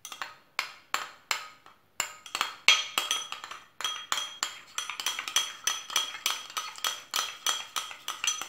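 Metal spoon clinking rapidly against a white ceramic bowl while stirring a runny mixture, a few spaced strikes at first, then quicker, about four clinks a second, each with a short ring.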